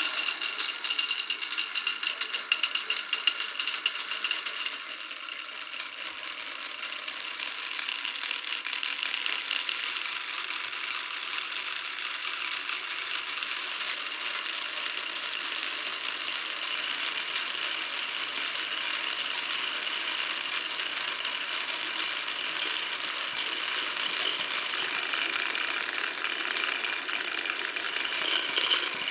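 Glass marbles rolling and clattering along a marble run's tracks. A dense rattle of quick clicks in the first few seconds gives way, about five seconds in, to a steadier, duller rolling rattle.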